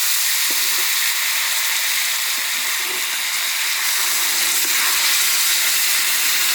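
A pot of chicken curry cooking on the fire, sizzling steadily with a hiss of steam and a few faint knocks.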